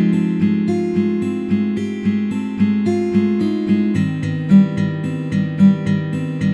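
Instrumental music: a steady pattern of plucked notes, about three or four a second, with the chords changing about four seconds in.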